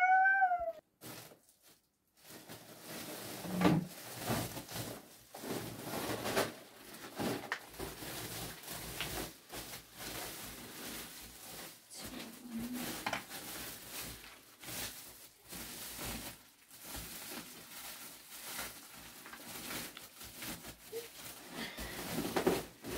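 Plastic sack rustling and crinkling as it is handled and rummaged through, with scattered light knocks and clatter of household items being moved.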